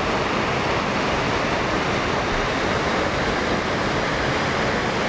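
Steady rushing of a mountain stream, an even hiss of flowing water with no breaks.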